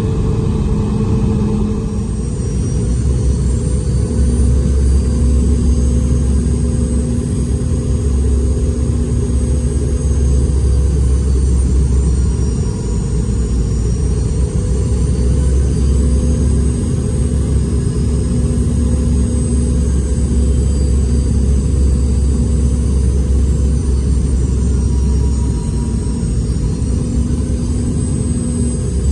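Boeing 717's Rolls-Royce BR715 turbofan engines heard inside the cabin: a steady rumble under a high engine whine that slowly dips and rises in pitch.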